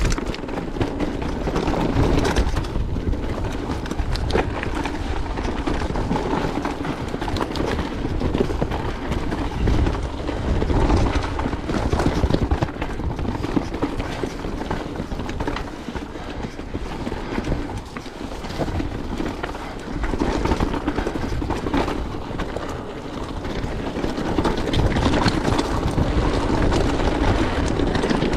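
Mountain bike ridden over a rocky trail: tyres clattering and crunching over rock and gravel, with a steady stream of small knocks and rattles from the bike as it hits the bumps.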